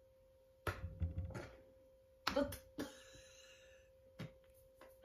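An open-hand slap on the face, a sharp smack about two seconds in, with a few softer knocks and some rustling around it.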